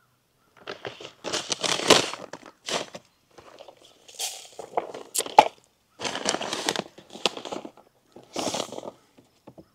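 Plastic seed bag and a fabric bag seeder crinkling and rustling as they are handled, in several irregular bursts with short pauses between.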